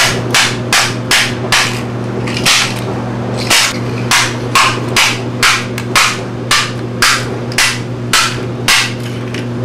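A hammer repeatedly smashing an old film camera, about two blows a second with a couple of short pauses.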